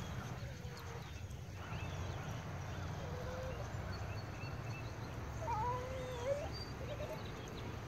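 A dog whining faintly, two short wavering whines about three and five and a half seconds in, over a steady low outdoor rumble.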